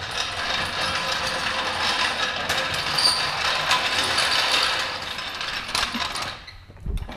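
Low-profile floor jack being rolled across a concrete floor by its handle, its casters rattling and clicking steadily for about six seconds. A dull thud follows near the end.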